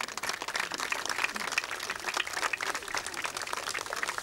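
A crowd of spectators applauding, many hands clapping steadily.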